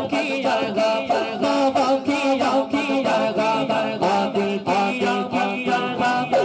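A man singing a naat, an Urdu devotional song in praise of the Prophet, into a microphone over a public-address system, with held, wavering notes over a steady rhythmic beat.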